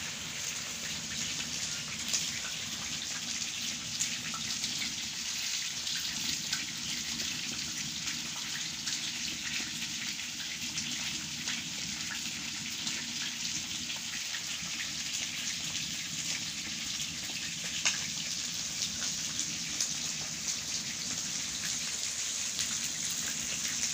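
Steady patter of many small ticks over a hiss, rain-like, on the tent, with a sharper tick about two seconds in and another near eighteen seconds.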